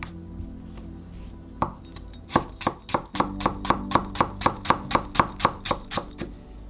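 Kitchen knife slicing myoga (Japanese ginger) thinly on a wooden cutting board. A couple of single knocks come first, then from about two seconds in a quick, even run of cuts, roughly four or five a second, that stops shortly before the end.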